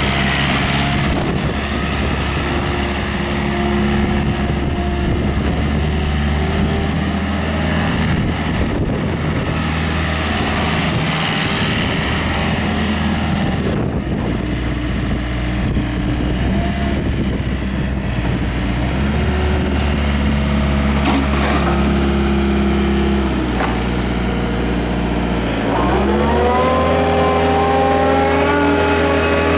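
Hyundai R555W-7 wheeled excavator's diesel engine running steadily; about three-quarters of the way through it revs up, the pitch rising and then holding at the higher speed.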